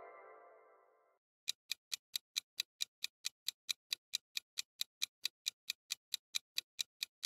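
Ticking-clock sound effect, an even tick about four to five times a second, starting about a second and a half in. It serves as a countdown for thinking time on a quiz question. Before it, the fading end of a chime cuts off about a second in.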